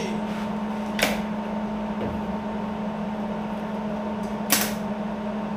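A MIG welder striking two brief tack welds on sheet steel, a short crackle about a second in and another about four and a half seconds in, over a steady hum.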